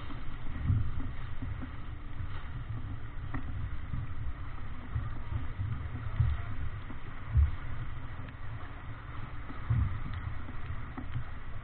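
Rushing water and spray along the hull of a Davidson 36 sailing yacht heeled over and beating through choppy waves, with wind buffeting the microphone in uneven gusty rumbles.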